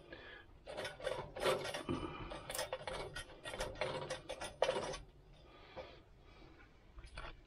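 A stick poking and scraping about in ash and burning wood chips inside a stainless steel vegetable-steamer firebox, a quick run of scratchy scrapes that thins out to fainter rubbing after about five seconds. The fire has burned down to mostly ash.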